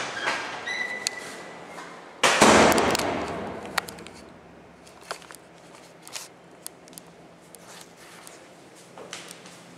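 A heavy door slams shut about two seconds in with a loud bang that rings out for a second or more, after a brief squeak. Faint scattered footstep taps follow.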